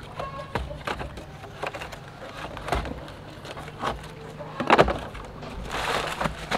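Pruning shears snipping fruit stalks, and the hard fruits knocking against each other in a woven bamboo basket. It is a series of separate clicks and knocks, loudest in a short cluster a little under five seconds in, with a brief rustle of the basket near the end.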